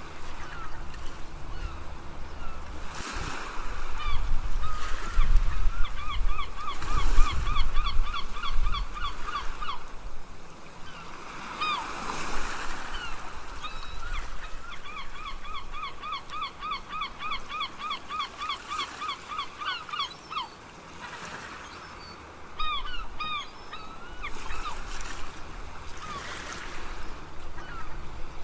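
Seagulls calling over breaking ocean waves: two long runs of rapid, repeated yelping calls at about four a second, with single cries between them. A heavier surge of surf comes in the first third.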